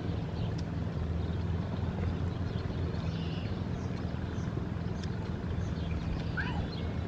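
Steady low outdoor hum, like a motor or traffic in the background. A short chirp comes about six and a half seconds in.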